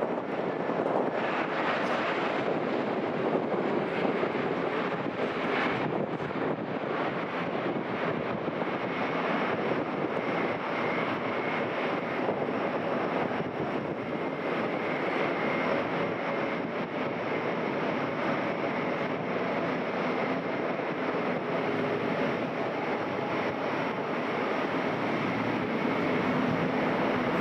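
Jet engines of a Wizz Air Airbus A321neo running, a steady, even noise with a faint high whine running through it.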